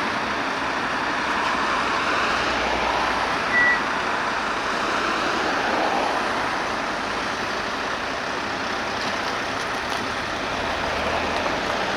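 Steady rushing noise of fire-brigade vehicles and road traffic, with one short high beep about three and a half seconds in.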